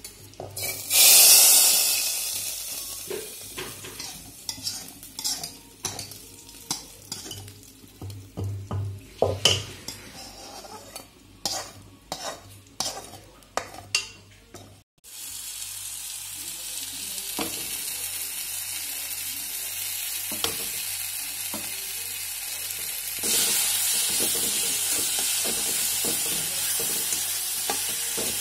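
Hot oil tempering of cumin and dried red chilli poured from an iron kadai into dal: a loud sizzle about a second in that dies away, followed by a metal ladle knocking and scraping the kadai. After a sudden break, prawns fry in the iron kadai with a steady sizzle while a steel spatula scrapes and stirs them; the sizzle grows louder partway through.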